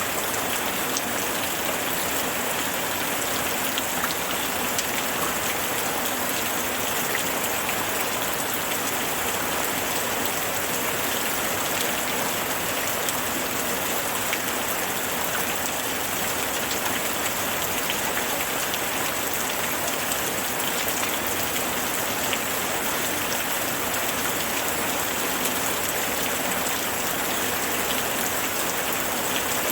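Steady rain falling on a surface, an even hiss with many fine drop patters.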